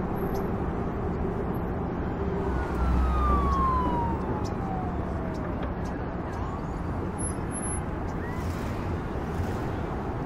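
Outdoor traffic ambience: a steady low rumble of road noise. A single falling whine glides down over about two seconds, a little after the start.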